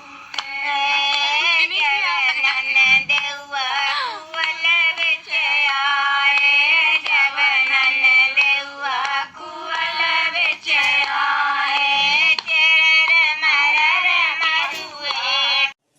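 A high-pitched, pitch-shifted singing voice with wavering pitch over background music; it cuts off abruptly near the end.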